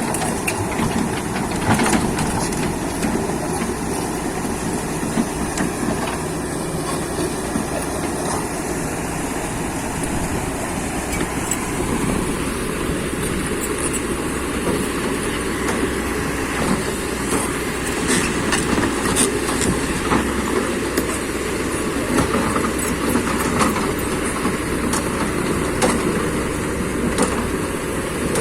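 Kobelco SK200 hydraulic excavator working: the diesel engine runs steadily under load, with repeated metallic clanking and knocks from the machine as it compacts soft mud.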